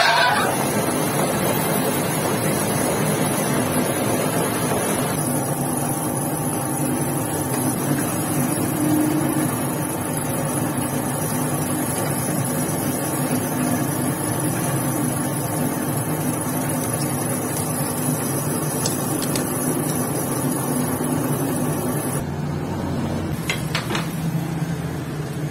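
Metal lathe running with a steady hum. A few light clicks come near the end.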